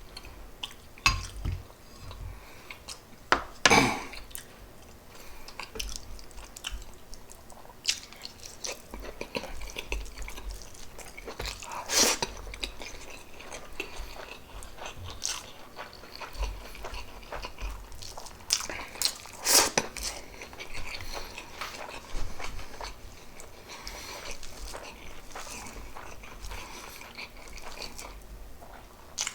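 A person chewing and biting food with open, close-miked eating sounds, broken by a few sharp clicks or knocks of utensils against a plate, the loudest about 4, 12 and 20 seconds in.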